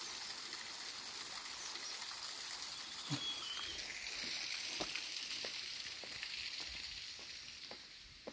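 Small mountain stream rushing as a steady hiss that fades toward the end, with faint footsteps on a forest path.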